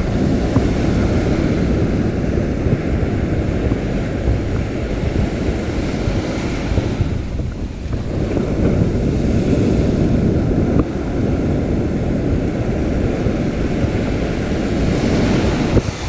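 Wind buffeting the microphone over surf washing onto the beach: a loud, steady rush with no distinct events.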